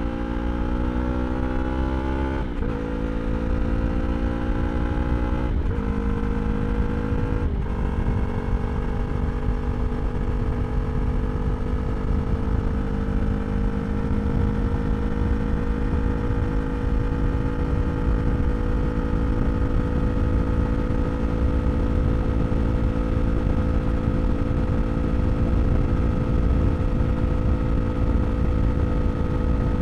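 2023 Yamaha R3's parallel-twin engine through an Akrapovič slip-on exhaust, accelerating and shifting up three times in the first eight seconds, each shift a brief break and drop in pitch. It then holds a steady pitch that climbs slowly as the bike cruises, with a heavy wind rumble underneath.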